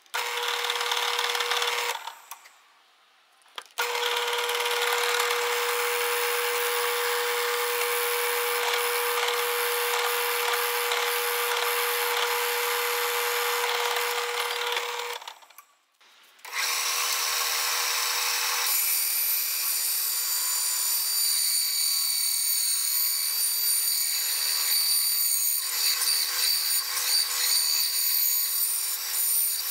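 A bench drill press runs with a steady motor hum as it bores into a purpleheart hardwood block. After a short break about halfway through, a small bandsaw runs, cutting the purpleheart ring blank.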